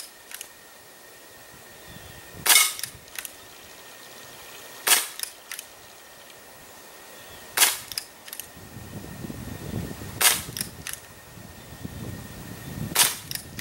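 Crosman Vigilante CO2 pellet revolver firing five single shots, about two and a half seconds apart, each a sharp pop followed by one or two fainter clicks. It is being fired at −30 °C, cold enough that the owner doubts the CO2 will perform well.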